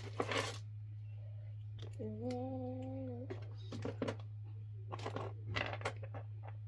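Small plastic fidget toys being handled, with scattered clicks and rustles, over a steady low electrical hum. A single held hummed note lasts a little over a second, about two seconds in.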